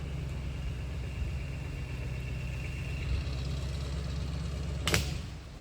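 Dump truck engine running steadily under load as it pulls on a rope tied high in a pine tree, with one short sharp noise near the end.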